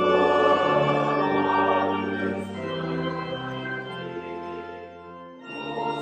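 Church choir singing with organ accompaniment, entering loudly after a brief break, easing off briefly near the end of a phrase and then going on.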